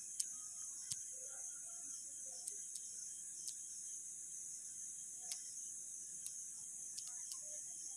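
Faint, steady high-pitched chirring of crickets, with a few soft, scattered clicks.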